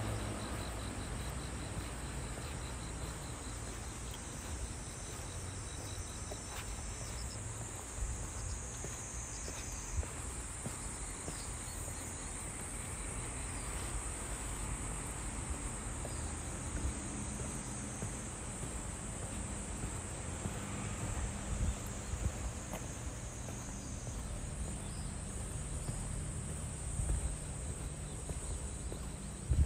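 Insects calling in a steady, high-pitched drone, over a low background rumble.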